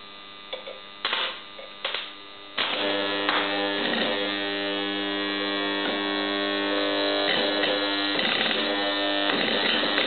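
Rewound microwave oven transformer humming loudly under heavy load as its 6.6 V secondary is shorted through a thick screw. There are three short surges as contact is made and broken in the first two seconds, then a steady loud hum from about two and a half seconds in.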